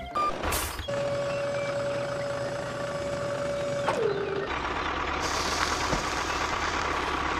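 Truck-type tipping sounds for a mini tractor's dump trolley: a steady whine that slides down in pitch about four seconds in, then a rushing hiss as the sand load pours out.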